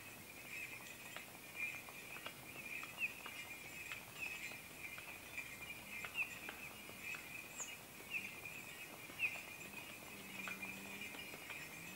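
Faint outdoor ambience: thin, high chirps of small birds recurring about once a second over a steady high hiss, with scattered soft clicks. A low hum comes in near the end.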